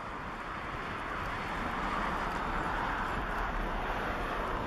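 Airbus A340-300's four CFM56 turbofan engines at takeoff thrust during the takeoff roll: a steady rushing jet noise that builds slightly about a second and a half in and then holds. Wind buffets the microphone underneath.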